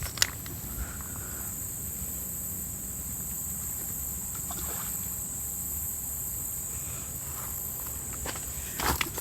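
Steady high-pitched insect chorus, like crickets or cicadas, with a low rumble underneath. There is a sharp click just after the start and a few footstep crunches near the end.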